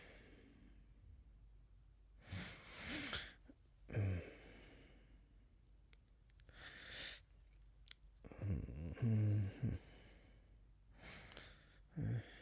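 A man waking up from sleep: breathy sighs and exhalations with short low groans, and one longer drawn-out groan about two-thirds of the way through.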